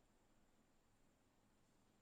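Near silence: faint room tone with a thin, steady high-pitched hum.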